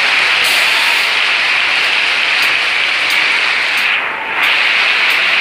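Large crowd applauding, a dense, steady clatter that dips briefly about four seconds in.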